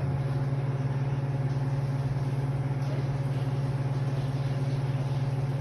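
Steady low electrical hum from a unit whose compressor will not start, the compressor having gone into locked rotor when first switched on.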